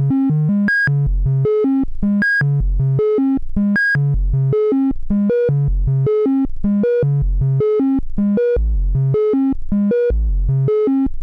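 Moog DFAM analog percussion synthesizer running its eight-step sequencer: a fast stream of short pitched synth blips, about five a second, in a pattern that repeats about every second and a half. Each step's pitch knob sets the pitch of the oscillator for that step. About four seconds in, the pattern's highest note drops out as a step's pitch is turned down.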